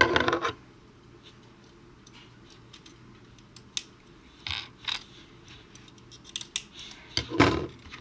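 Small plastic LEGO pieces clicking and clattering as they are handled and pressed together, a few separate sharp clicks spread out with quiet between them.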